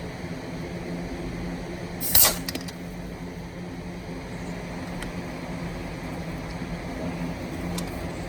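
A nearby engine idling steadily, with one brief, loud burst of noise about two seconds in, followed by a few faint clicks.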